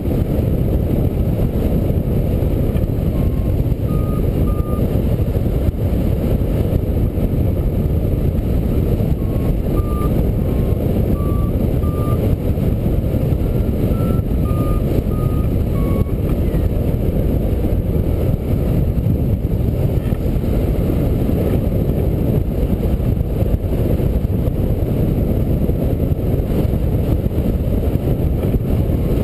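Wind rushing steadily over the microphone of a hang glider in flight, with an electronic variometer sounding short beeps that step up and down in pitch through the first half. These are the beeps a vario gives when the glider is climbing in lift.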